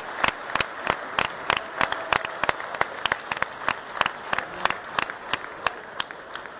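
Sparse audience applauding, with individual claps standing out. One close clapper keeps a steady beat of about three claps a second, and the applause slowly dies down toward the end.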